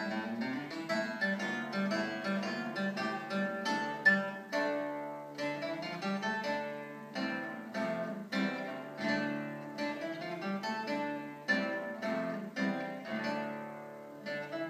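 Solo classical guitar built by Stephen Hill, fingerpicked: a melody of plucked notes over a bass line, with one sharply accented note about four seconds in and the playing growing softer near the end.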